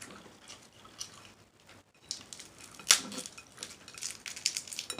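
Close-miked eating of a shrimp: a string of wet clicks and crackles. One sharp, loud click comes about three seconds in, and a quick run of small clicks comes near the end.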